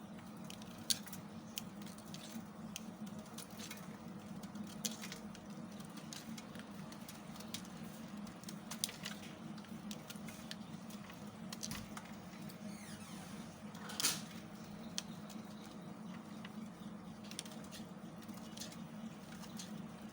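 A knife carving into a bar of soap: irregular small, crisp crackles and scrapes as the blade cuts and shavings break off, with a louder scrape about 14 seconds in. A steady low hum runs underneath.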